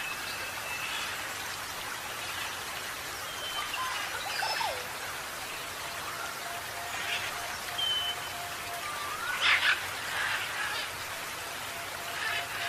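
Birds calling over a steady background hiss: short whistles and rising slides scattered through, a burst of calls about three-quarters of the way in, and a low pulsing note that starts about halfway.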